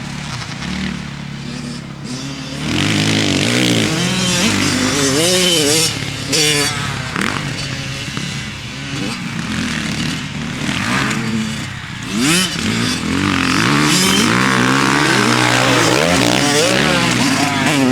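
Kawasaki KX100 two-stroke single-cylinder dirt bike engine revving hard, its pitch climbing and dropping again and again as the rider works the throttle and gears. It is quieter for the first couple of seconds, then much louder from about three seconds in.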